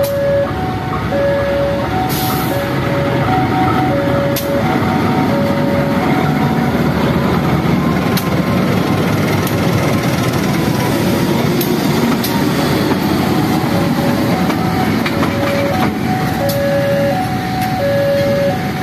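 KAI diesel-electric locomotive running light at low speed as it passes close by, its engine noise loudest mid-way, with a few sharp clicks. Throughout, a level crossing warning bell rings in a steady two-tone alternation.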